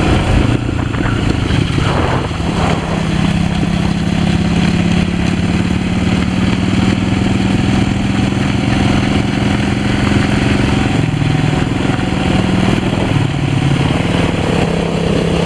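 Small motor vehicles moving at a steady low speed: a 1984 Honda Z50 minibike's 49cc four-stroke single-cylinder engine together with the engine of the vehicle pacing it. The engine note holds a steady, unchanging pitch.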